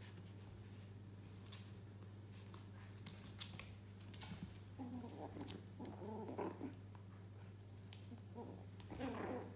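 Yorkshire terrier puppies play-fighting, giving soft growls in short bouts about halfway through and again near the end, with scattered small clicks and scuffles as they tussle.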